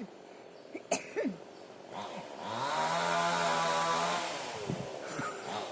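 A person coughs sharply about a second in. Then a small engine runs steadily for a couple of seconds, rising in pitch as it comes in and falling as it fades, and starts again near the end.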